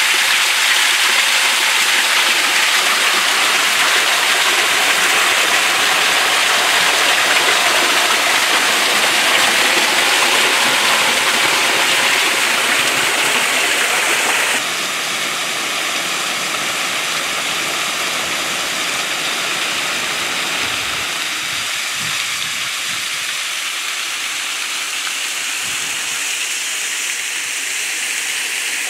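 Water from a small waterfall pouring off a rock ledge and splashing into a rock pool, a steady rushing hiss. About halfway through it drops suddenly to a quieter, more distant steady rush of falling water.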